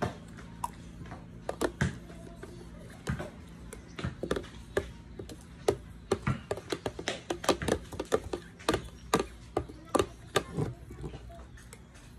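A metal spoon scraping and tapping around the inside of a plastic tub of melted ice cream, with mouth sounds of eating: an irregular string of sharp clicks and short scrapes.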